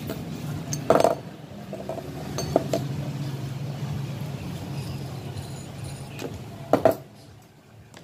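Metal clinks and knocks of an aluminium motorcycle quick-throttle housing being handled on a workbench, with two sharper knocks, one about a second in and one near the end, and a few light clicks between. A steady low hum runs underneath.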